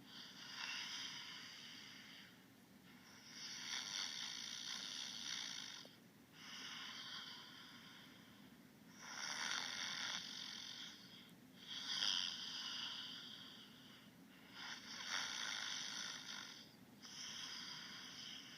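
Snoring: a steady run of airy, hissy breaths, each about two seconds long, following one another with brief pauses, about seven in all.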